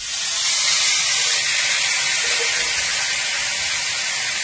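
Seasoned bone-in steak sizzling in a hot cast-iron skillet as it starts to sear, a loud steady hiss that rises to full strength in the first half second and then eases very slightly.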